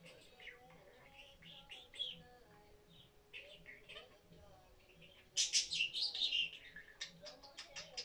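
A budgerigar chirping and chattering in quick, high notes, with a louder, denser burst of chatter about five and a half seconds in.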